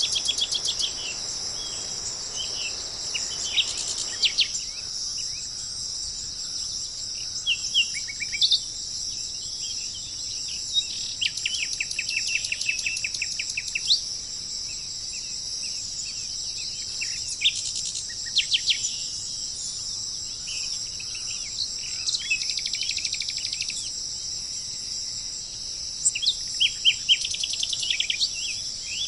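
A steady, high-pitched drone of insects like crickets, with several songbirds chirping and singing rapid trills over it. A low background hiss drops out about four seconds in.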